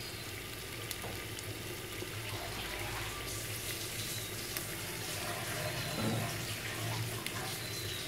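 Chilli and coriander paste frying in oil in a clay pot, a steady sizzle.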